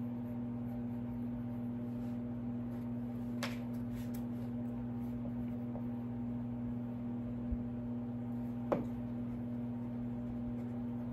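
A steady low hum, with faint pencil scratches and two light clicks from a pencil marking thin wooden kit pieces.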